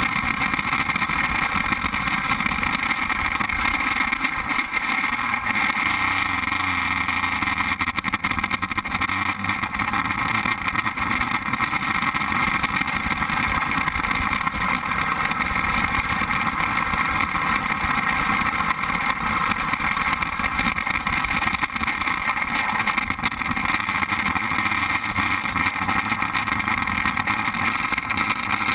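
Open-wheel formula race car's engine idling steadily, with no revving, heard from a cockpit-mounted camera.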